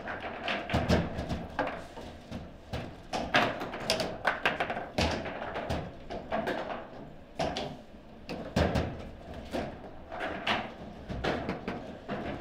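Table football in fast play: the ball struck by the plastic figures and the rods jerked and knocked, giving sharp clacks and thuds at irregular intervals.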